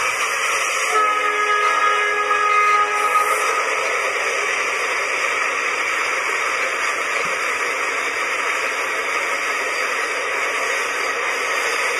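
Leslie locomotive air horn sounding a chord of several tones, one blast starting about a second in and cutting off about three seconds in. A steady rushing noise takes over and continues at the same loudness.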